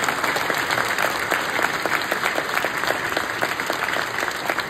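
Audience applauding, a dense steady patter of many hands clapping that cuts off abruptly at the end.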